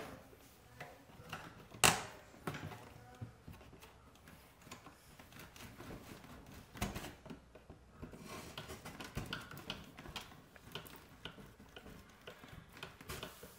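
Split spruce root drawn through stitching holes in birch bark: soft rustling and scraping of the root against the bark, with scattered light clicks and one sharper click about two seconds in.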